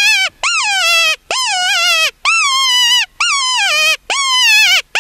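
Loud, high-pitched coyote-style whining yelps, about five in a row at roughly one a second. Each rises sharply and then slides down in pitch.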